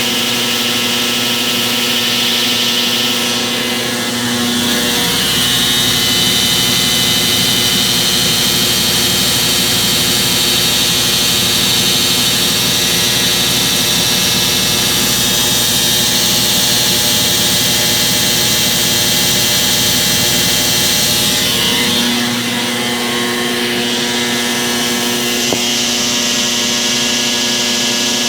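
Brastemp BWM08A 8 kg top-loading washing machine in its spin cycle, running loud and steady with the noise that the owner is reporting as a fault. About four seconds in, a deeper rumble and a high whine come in. They drop away again some eighteen seconds later.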